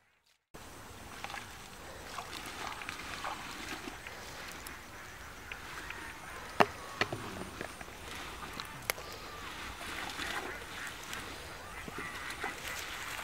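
Rustling and splashing as a cast net is gathered and hauled through water hyacinth in shallow water, with a sharp snap about six and a half seconds in and another near nine seconds. Intermittent calls sound in the background.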